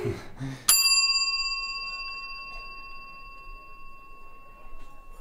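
A single bell-like ring, struck once with a clear pitch, fading slowly over about four seconds.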